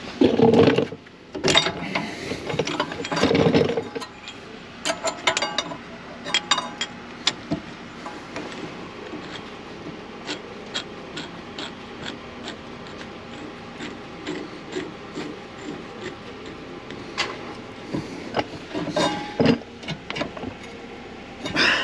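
Hand tools at work on a car's rear brakes: a ratchet wrench clicking, with metal clicks and ticks. There are louder clatters in the first few seconds, then scattered sharp clicks.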